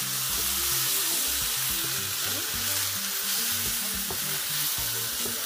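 Chicken, broccoli and carrots sizzling in a hot wok as a wooden spatula stirs them through a cornstarch slurry sauce, with a few light knocks of the spatula on the pan.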